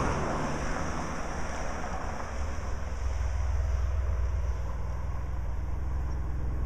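Wind rumbling and buffeting on the microphone over a steady rushing noise.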